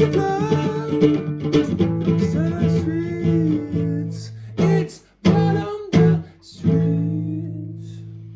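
A band's guitar playing out the end of a song: held strummed chords, a few sharp stabbed chords about halfway through, then a final chord left ringing and fading away.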